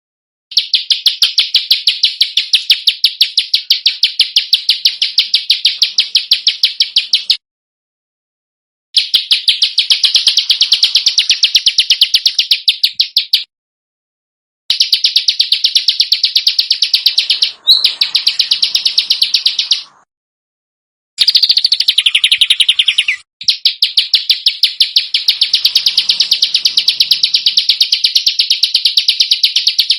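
A small songbird's harsh, rapid-fire call: sharp notes repeated in quick, even succession in long bursts of a few seconds each, five bursts with abrupt cuts and silent gaps between them, as in an edited masteran training track for competition songbirds.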